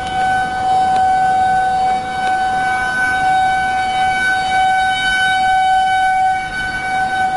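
Outdoor tornado warning siren sounding a steady, unbroken tone, warning of a tornado.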